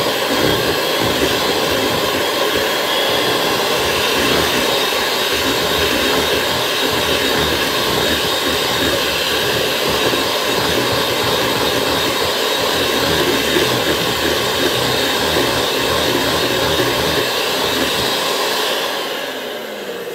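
Kenwood electric hand mixer running steadily, its beaters whisking cake batter in a stainless steel bowl. It is switched off near the end, and the motor winds down with a falling pitch.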